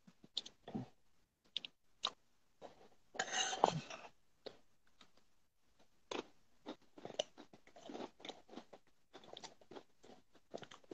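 Someone chewing crunchy food close to the microphone: irregular small crunches and clicks, with a longer, louder crunching stretch about three seconds in.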